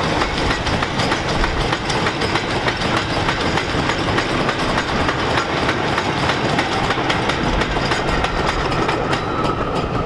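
Railway wagons rolling past, their wheels clattering steadily over the rail joints with a dense run of clicks.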